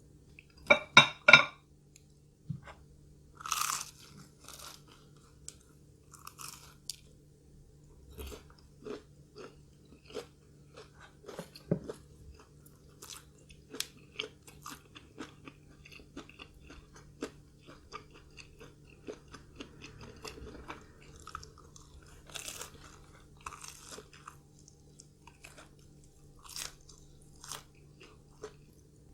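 A person chewing crunchy food close to the microphone, with a few loud crunching bites about a second in, then a long stretch of quieter, irregular crunching and chewing.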